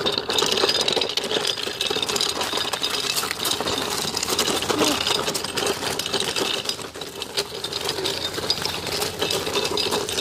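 Bicycle being ridden, giving a continuous fast rattling and clicking.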